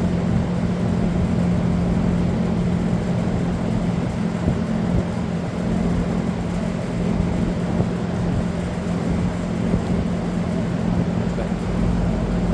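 Steady low mechanical hum from a running machine, level and unchanging throughout.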